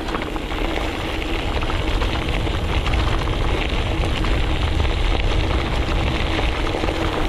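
A vehicle running, a steady low rumble with a faint steady hum.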